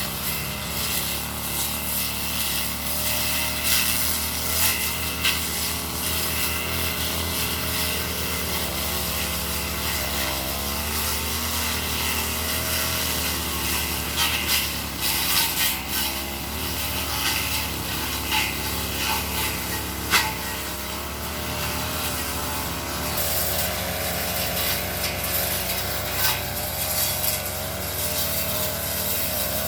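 Brush cutter engine running steadily at working speed while its blade cuts through grass and undergrowth, with scattered sharp snaps from the blade striking stems, several in a cluster about halfway through.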